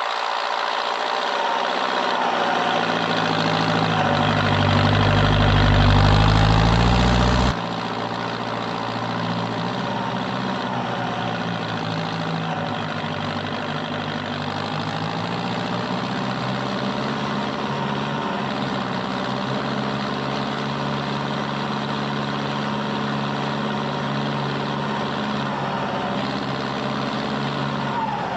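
Fendt Favorit 510C tractor engine running while pulling a field roller, its pitch climbing and its level rising over the first several seconds. About seven seconds in, the sound changes abruptly to a steady, even running sound.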